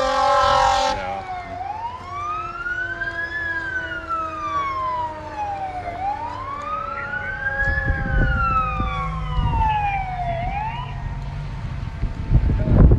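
Fire apparatus siren wailing, its pitch rising and falling slowly about twice. A steady horn tone cuts off about a second in, and a low rumble joins in the second half.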